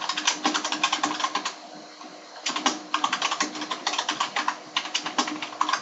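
Fast typing on a computer keyboard, a quick run of key clicks that stops briefly about one and a half seconds in, then carries on.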